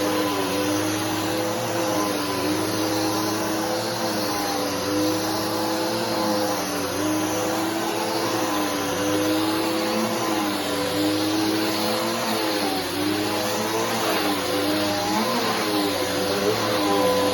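Bissell PowerForce Helix upright bagless vacuum cleaner running steadily while vacuuming, a constant rush of air with a motor whine that dips slightly in pitch now and then.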